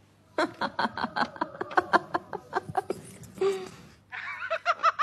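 Human laughter in rapid, rhythmic bursts of about five a second. It breaks off briefly about three and a half seconds in, then starts again near the end.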